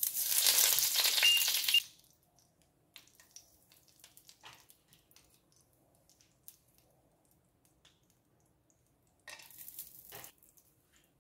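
Whole spices sizzling as they are dropped into hot oil in a frying pan: a loud sizzle for about two seconds as a bay leaf goes in, a few faint crackles a few seconds later, then a second, shorter sizzle about nine seconds in as more spices (cardamom pods and cloves) hit the oil.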